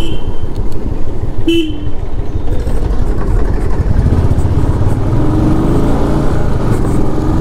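Royal Enfield Classic 350's single-cylinder engine running, with wind buffeting the microphone. A horn beeps once about a second and a half in, and the engine note rises as the bike speeds up in the second half.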